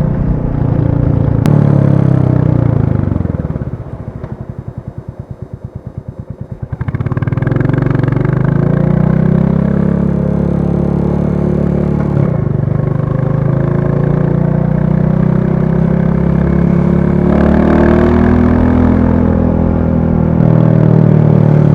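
Royal Enfield Classic 350's single-cylinder engine: the revs drop away to a slow, even thump for a few seconds, then it pulls away again, rising through the gears with a brief break at a gear change.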